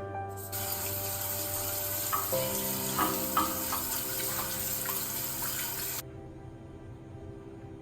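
Running water rinsing disassembled air conditioner parts, starting about half a second in and cutting off suddenly about six seconds in, over soft background music.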